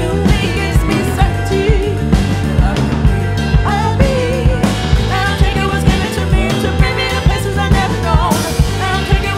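Live band playing a song: two women singing over guitar and drums with a steady beat.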